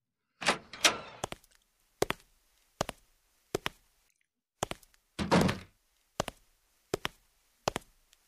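Sound effects of a door opening, then footsteps on a hard floor, one sharp step about every 0.7 s. A door shuts about five seconds in, and a few more footsteps follow.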